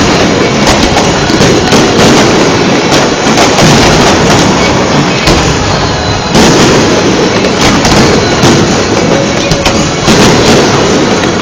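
Fireworks display going off in quick succession: a loud, dense run of bangs and crackling with no pause between bursts.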